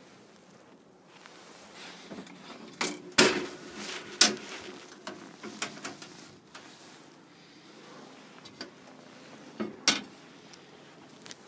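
Knocks, clunks and rattles of a gas cooker being handled: the oven door and racks, and the hinged cover over the hob. Two loud knocks come about three and four seconds in, then smaller clicks, and another pair of knocks near the end.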